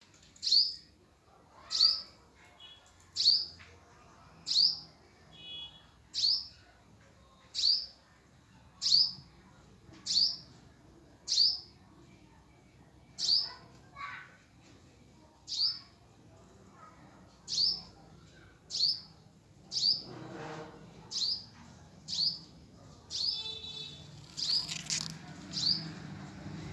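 Hummingbird chirping: single short, high notes, each sweeping quickly downward, repeated steadily about once every second and a quarter.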